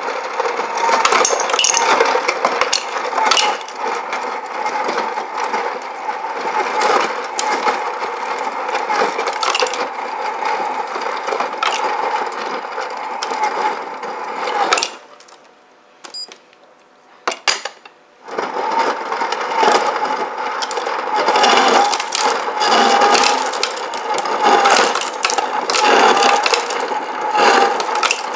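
Refrigerator ice dispenser dropping ice into a ceramic mug: a steady clatter of ice falling down the chute, with the dispenser's motor running underneath. About halfway through it stops for about three seconds, then starts again.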